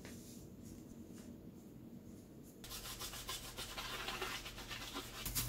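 Round-headed natural-bristle dish brush scrubbing a plastic food-container lid in rapid back-and-forth strokes, starting about halfway in.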